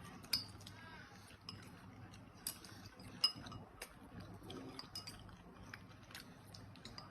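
A baby eating: scattered sharp mouth clicks and smacks with a few light clinks, over a low steady hum.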